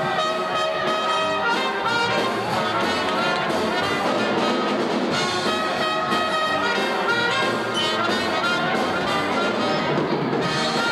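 Brass-led pep band music: a tune played in held horn notes.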